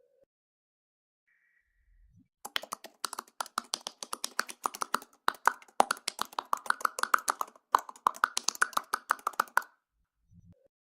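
A fast run of short, sharp clicks, several a second, lasting about seven seconds with two brief breaks.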